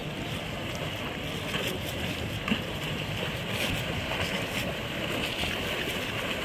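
Steady wind buffeting the microphone over choppy water lapping, with a single brief knock about two and a half seconds in.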